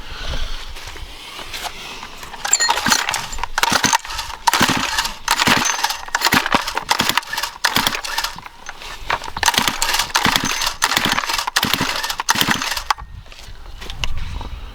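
Recoil starter of a Stihl FS 131R string trimmer being pulled over and over, each pull a sharp rattling whir as the engine turns over without firing. The tank holds only fuel-system cleaner and no gas, so the pulls draw the cleaner into the carburettor.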